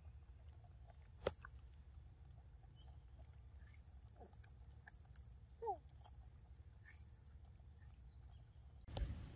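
Quiet outdoor ambience: a steady high whine that cuts off near the end, a few faint clicks, and a brief squeak a little past halfway.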